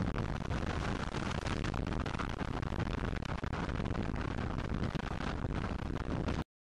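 Wind buffeting the microphone of a camera on a moving dirt bike, mixed with the motorcycle's engine noise, as a dense, steady rush. It cuts off suddenly near the end.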